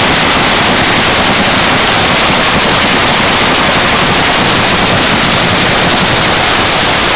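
8,000-horsepower drag-racing engine running, so loud that it overloads the recording into a steady, distorted roar with no breaks.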